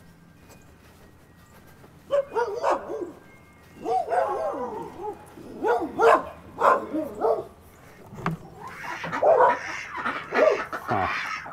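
A dog barking in short repeated bursts, starting about two seconds in and coming thicker and faster near the end.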